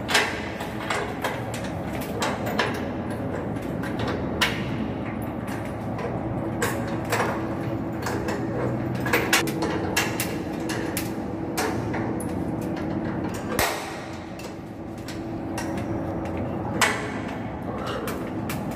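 Scattered metallic knocks and clanks of wrenches and bolts on the steel mount of a blower exhaust fan motor as it is fitted and tightened, over a steady hum of machinery that stops about two-thirds of the way through.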